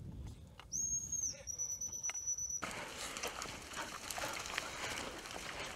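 Two blasts on a gundog handler's whistle: a steady high note of about half a second, then a slightly lower one of about a second. From about halfway on, footsteps and rustling through heather and scrub take over.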